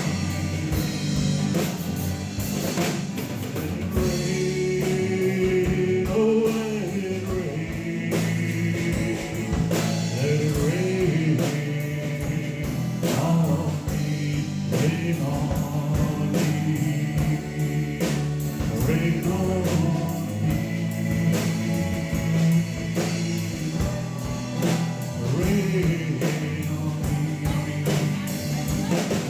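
Live band music: a rock song with a drum kit keeping a steady beat under guitars and bass, and a sung melody line on top.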